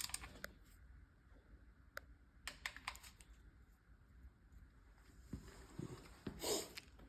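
Scattered light clicks and taps of hand tools working round the bolts of an S-tronic gearbox casing, with a louder knock about six and a half seconds in.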